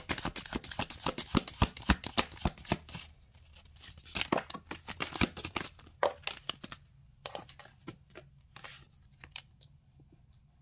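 Tarot cards being shuffled and handled by hand: a dense run of rapid card flicks and rustles for about three seconds, then sparser clusters of taps and slides as cards are drawn and laid on the table, dying away near the end.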